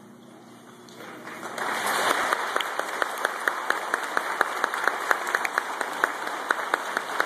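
Large audience of schoolchildren and adults applauding, building up from a hush about a second in, with single sharp claps close by standing out.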